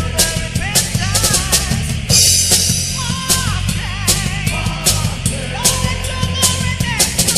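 Heavy metal band playing in a studio recording: a drum kit drives with bass drum, snare and cymbal hits, with a cymbal crash about two seconds in, under guitars and bass and a wavering melodic line with held notes.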